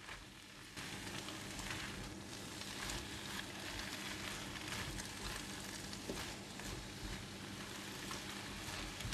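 Cabbage and luffa sizzling in a hot non-stick wok as they are stirred and tossed with a silicone spatula, with light crackling and soft scraping of food against the pan. The sizzle grows louder about a second in.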